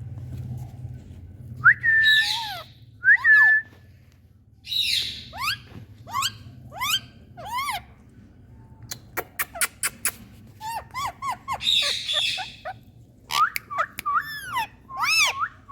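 Indian ringneck parakeets calling: a string of separate calls, some rasping squawks and some clear arched whistles, with a quick run of sharp clicks about nine seconds in.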